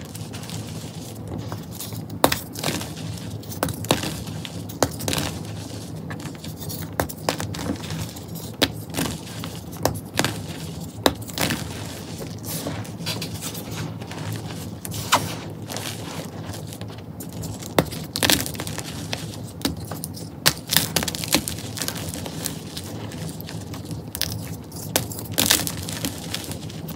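Hands crushing and crumbling soft, powdery chalk, loose purple-dyed powder and white chunks: an irregular run of dry crunches and crackles with sharper snaps now and then. A faint steady low hum lies underneath.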